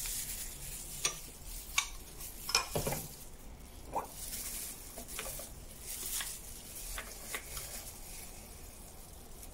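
Light kitchen handling noises: scattered small clicks and taps of utensils and containers, about one a second, over a faint hiss.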